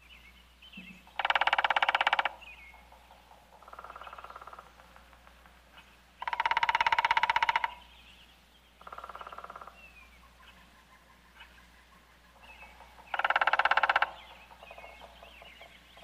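Great spotted woodpecker drumming on a tree trunk: three loud rapid drumrolls, each about a second long, with two fainter rolls in between and faint bird chirps.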